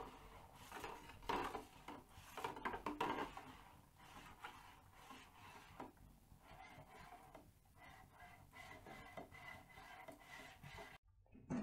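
Faint irregular crackling and rustling of oil burning in an open tin, with the wood stove fire beside it, as the flames die down. The sound cuts off abruptly near the end.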